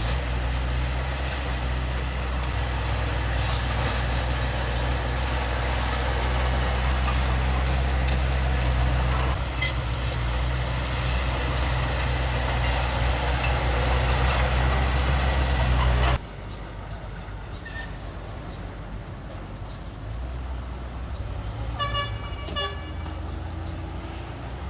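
Heavy diesel earthmoving machinery running steadily with metallic clanks and rattles. About two-thirds of the way through the loud engine sound cuts off abruptly, leaving a quieter engine hum, and a short horn toot sounds near the end.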